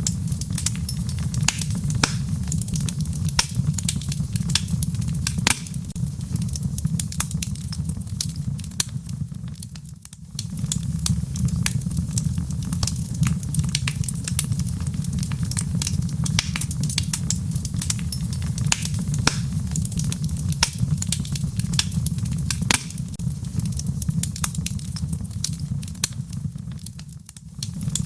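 Fire burning in a fireplace: a steady low rumble with irregular crackles and pops throughout. The sound briefly dips twice, about ten seconds in and near the end.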